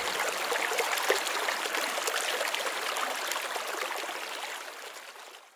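Trickling, babbling water, a steady stream of small splashes that fades out gradually toward the end.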